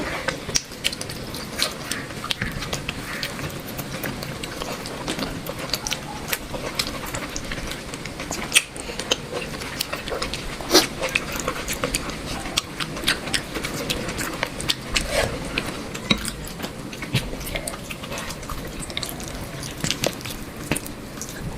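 A person eating close to the microphone: wet chewing with many quick mouth clicks and smacks throughout.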